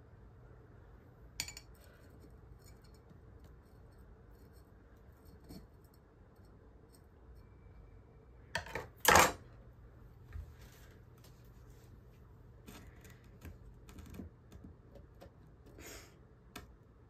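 Metal terrarium tweezers and tools handled and set down on a wooden tabletop: one sharp clack about nine seconds in, with lighter clicks and taps before and after, over a faint steady low hum.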